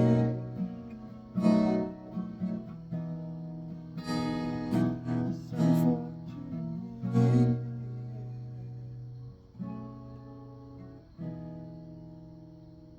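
Acoustic guitar strumming chords, the strums spacing out. A last chord about eleven seconds in is left to ring out and fade.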